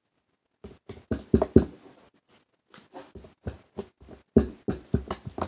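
Irregular knocks and taps as slime is worked out of its plastic container into a bucket, the container bumping and tapping while the slime drops in.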